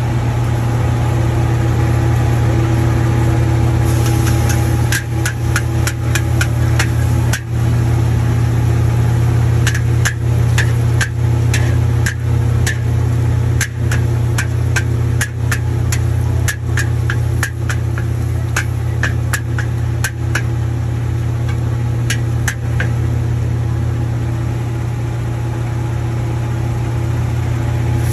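Steady low hum of the wok stove's gas burner, with hot-oil frying sizzle rising about four seconds in as egg goes into the wok. From about five to twenty-three seconds in, a metal spatula clanks and scrapes against the wok in quick, irregular strokes while the egg is stirred.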